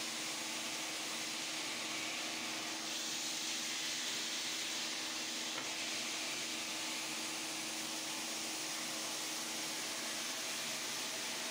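Stone polishing machine running steadily, its spinning abrasive head grinding over a wet black stone slab: an even hiss with a steady hum underneath.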